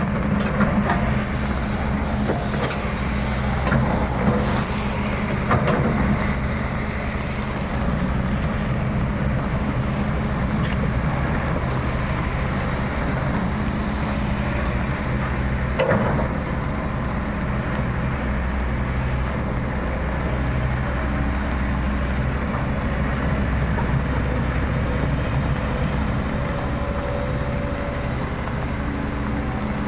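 Excavator's diesel engine running steadily under load, with a few sharp knocks and cracks, the loudest about sixteen seconds in.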